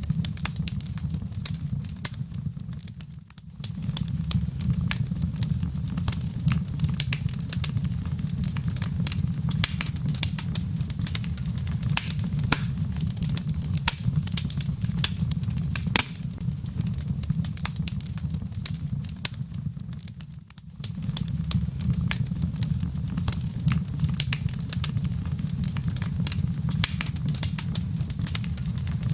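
Fireplace fire crackling, with dense irregular pops and snaps over a steady low rumble. The rumble briefly fades twice, about 3 seconds in and again about 20 seconds in.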